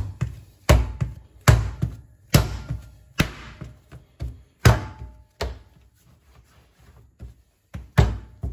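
Soft, buttery yeast dough being slapped onto the worktop and folded over by hand in slap-and-fold kneading. It lands with a heavy thud about once every second, a few lighter knocks follow, and there is one last strong slap near the end.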